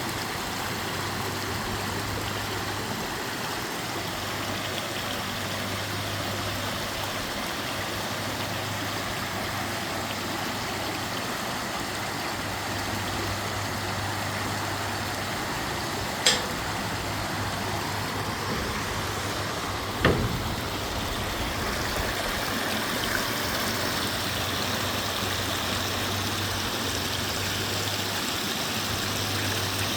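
Small waterfall and creek water rushing steadily, with a low steady hum underneath. Two brief clicks, at about 16 and 20 seconds in.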